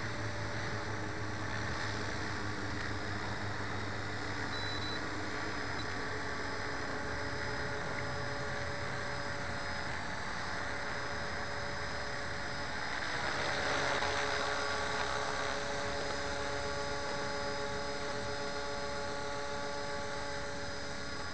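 Electric 450-size RC helicopter in flight: a steady whine from its brushless motor and spinning rotor over a hiss of noise, swelling louder for a couple of seconds about two-thirds of the way in.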